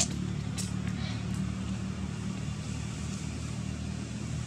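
A steady, low engine hum, like a motor vehicle running nearby, with a few short, sharp clicks in the first second and a half.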